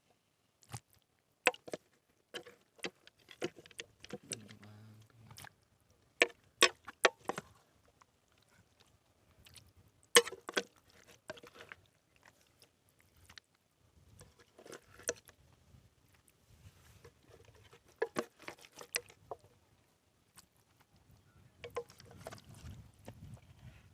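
Scattered sharp clicks and knocks at irregular intervals, with quiet stretches between them.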